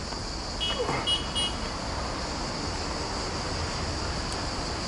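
Steady high-pitched buzzing of insects in the trees over a low rumble, with three short high chirps about a second in.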